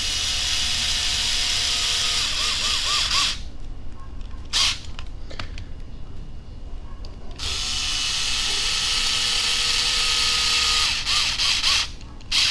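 Electric screwdriver driving screws into the plastic skid of an RC crawler chassis in two runs of a few seconds each. The first stops about three seconds in and the second starts about halfway through, each wavering in pitch as it stops, with short clicks in between.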